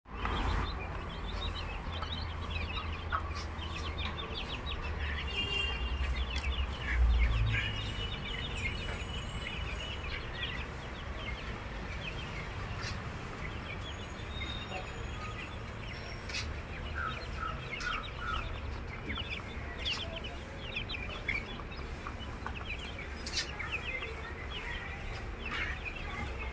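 A cage full of aseel chicks peeping, many short high cheeps overlapping one another. A low rumble runs underneath and swells briefly about seven seconds in.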